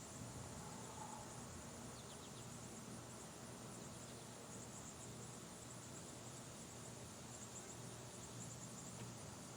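Insects chirping faintly: a steady high-pitched drone with short pulsed trills that come and go every second or so through the second half, over a faint low hum.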